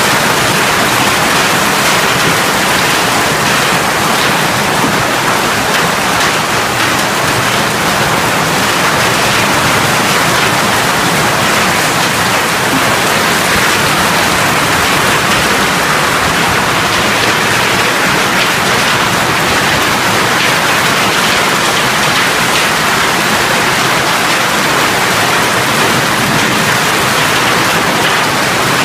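Hail and heavy rain falling hard onto pavement during a severe hailstorm: a loud, dense, steady hiss of countless small impacts.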